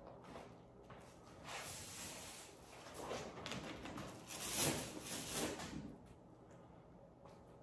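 Wallpaper sheet rustling and sliding against the wall as it is pulled back at the ceiling line and pressed into place by hand: a few seconds of paper rustles, loudest about four to five and a half seconds in.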